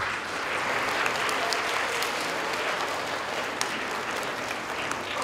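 Audience applauding, many people clapping steadily, thinning out near the end.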